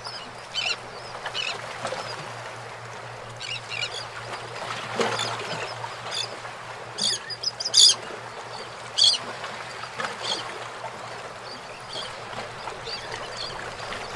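Birds calling in short, separate squawks at irregular intervals, the loudest cluster about halfway through, over a steady background hiss.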